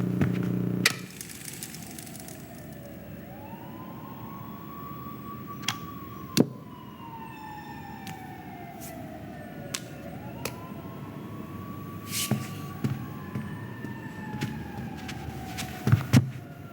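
Siren wailing, its pitch rising quickly and then falling slowly, in two full cycles. A few sharp knocks and clicks sound over it, the loudest about six seconds in and near the end. A loud low buzz at the start cuts off with a click about a second in.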